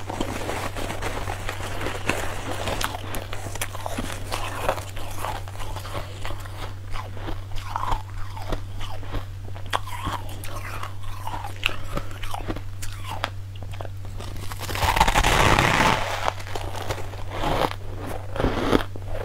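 Mouth biting and chewing fluffy, frost-like ice, a string of crisp crunches one after another. About fifteen seconds in, a louder rustling, crunching rush lasts a second or two, and a steady low hum runs underneath.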